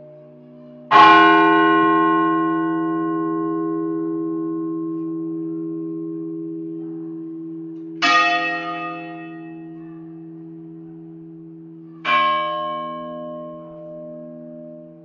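A large bell struck three times: once about a second in, again about seven seconds later, and once more four seconds after that. Each strike rings on and fades slowly, with a wavering hum that carries on between strikes; the first strike is the loudest.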